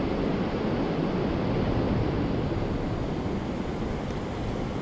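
Steady rushing noise of wind on the microphone mixed with fast-moving river water.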